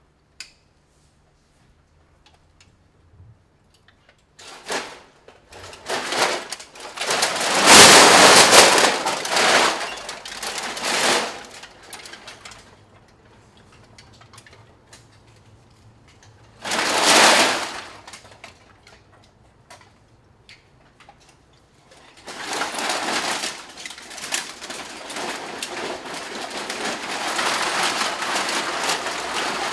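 Crushed aluminium drink cans clattering and rattling against each other on a performer's can-covered costume as it moves. Nearly quiet at first, then long bursts of clattering a few seconds in and again just past the middle, turning into a steady rattling through the last third.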